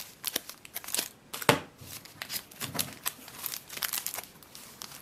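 Foil trading-card booster packs crinkling in the hands and a wrapper being torn open: a run of irregular sharp crackles, with one louder crackle about a second and a half in.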